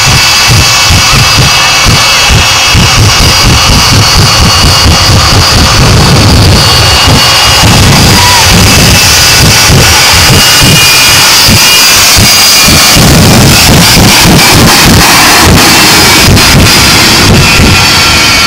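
Shockwave jet truck's jet engines running with afterburners lit: a loud, harsh noise with several steady high whines over a fast, uneven low pulsing, overloading the microphone.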